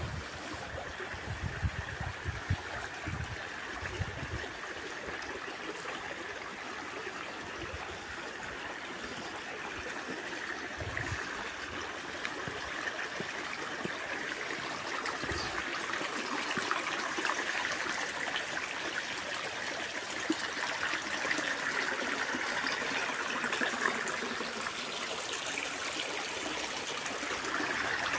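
Shallow creek water running and trickling over rock slabs and a small ledge, a steady rushing that grows a little louder near the end.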